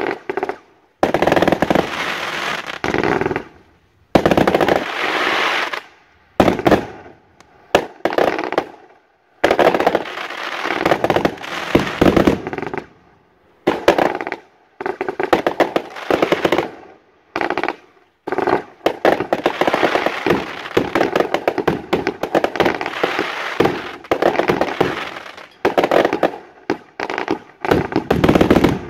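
Fireworks going off in rapid volleys of bangs and crackles, in clusters of a few seconds with short pauses between them.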